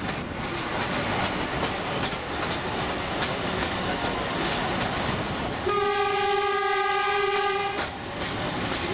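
Scenic railway train running along the narrow-gauge track with a steady rumble and rail clatter; about six seconds in, the locomotive's horn sounds one steady blast of about two seconds.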